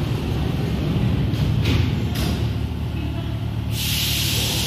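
Paris Metro Line 1 train standing at the platform with its doors closing, over a steady low rumble. Short soft hisses come partway through, then a loud hiss starts near the end.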